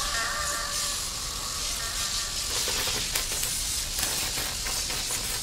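Steady hissing background noise. A few faint held tones fade out within the first second, and a run of faint ticks follows in the second half.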